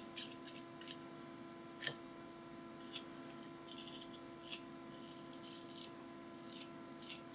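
A small metal artist's spatula scraping and ticking lightly against a model tree's coin base as it spreads gritty textured pumice paint around it: scattered short scrapes, with a longer scrape about five seconds in.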